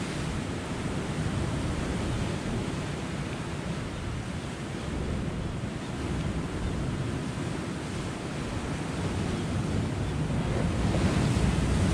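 Sea surf washing against a rocky shore, a steady rush with wind buffeting the microphone. It grows louder near the end as a bigger wave comes in.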